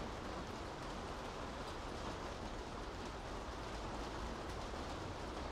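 Steady rain falling on city streets, an even continuous hiss with a low rumble underneath.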